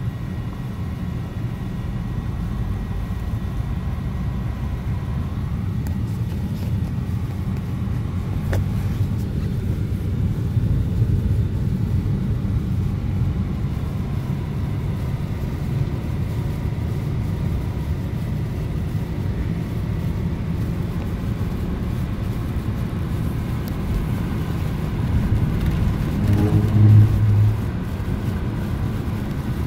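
A car driving through snow: a steady low rumble of engine and tyres. Near the end a short, louder low hum with a steady pitch stands out for about a second.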